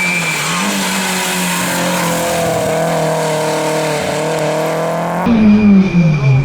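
Rally car engine running hard, its pitch rising and falling as it is driven. About five seconds in the sound changes abruptly to a louder car engine, with its pitch dipping and climbing.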